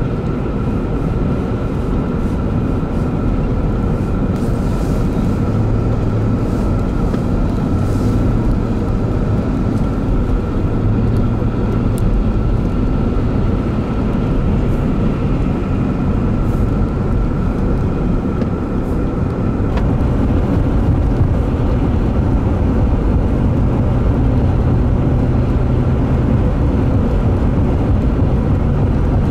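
Car driving along a highway, steady engine and tyre noise heard from inside the cabin, with a thin steady hum above it.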